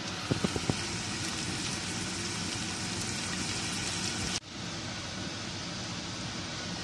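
Steady background hiss with four quick sharp knocks about a third of a second in. The hiss breaks off for an instant about two-thirds of the way through and resumes slightly duller.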